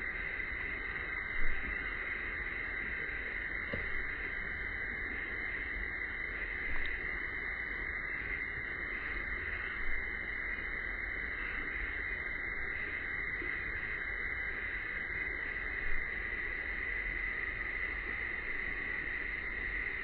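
Summer cicadas buzzing as a continuous chorus: a steady drone with a faster pulsing trill above it. A few short soft thumps break in, the loudest about a second and a half in and again near sixteen seconds.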